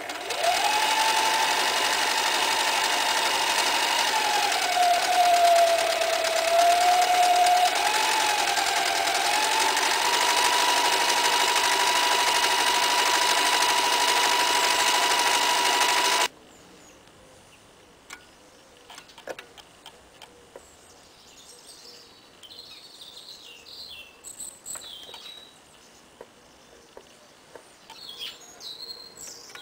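Toyota 9060 electric sewing machine running, sewing rows of decorative stitches: a steady motor whine whose pitch sags for a few seconds near the start, then holds steady. It stops suddenly about sixteen seconds in.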